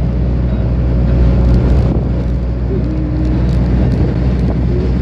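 Steady engine and road noise of a moving car heard from inside the cabin: a continuous low drone.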